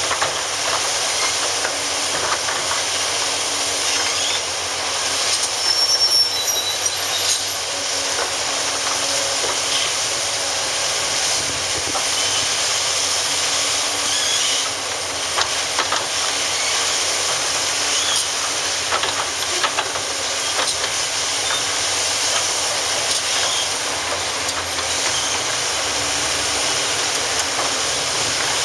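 Hitachi ZX870-3 large hydraulic excavator working under load, with steady diesel engine and hydraulic noise as its bucket digs and scrapes through demolition rubble. Rubble knocks and clatters throughout, with a few brief high squeaks about six seconds in.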